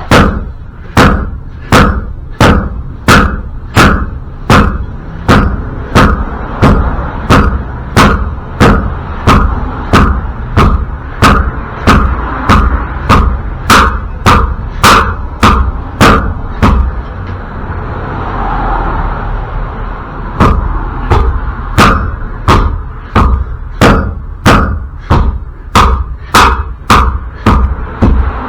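Repeated hammer blows on metal, about one and a half a second, with a few seconds' pause past the middle: hammering at a wheel bearing that is stuck fast and will not come out.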